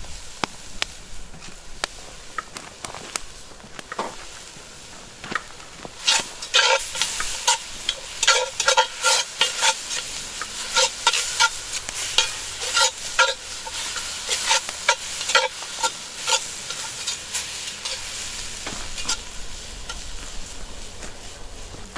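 A utensil stirring and scraping food in a cast-iron dutch oven: quick, repeated metallic scrapes that ring against the pot, densest from about six seconds in to about seventeen, over a steady sizzle of onions and garlic frying in butter.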